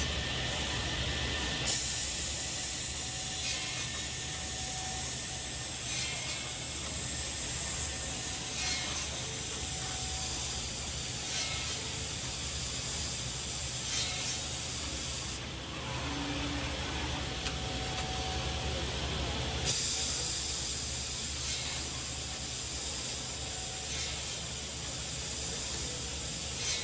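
Woodmaster WM-EKE-SQ automatic square-block drilling and cutting machine running through its cycle: a steady motor hum with a clack from the mechanism about every two and a half seconds. A loud air hiss switches on with a burst about two seconds in, cuts off past the middle, and switches back on a few seconds later.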